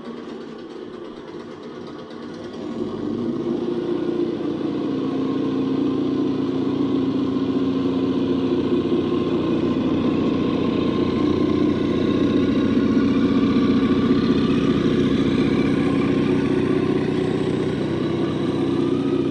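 Simulated engine sound from an ESS-DUAL+ engine sound simulator playing through its speaker. It swells louder about three seconds in, then runs steadily at a raised level.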